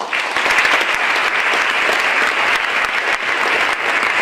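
Audience applauding: many hands clapping in a dense, steady sound that breaks out suddenly and holds at an even level.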